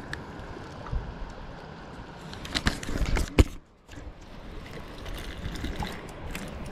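A spinning reel being handled and wound, with a few sharp clicks, the loudest about three and a half seconds in, over a steady wash of shallow water and wind noise.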